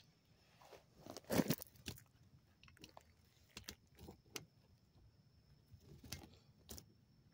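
Scattered soft crackles and rustles of a phone being handled over grass, with a louder cluster about a second and a half in.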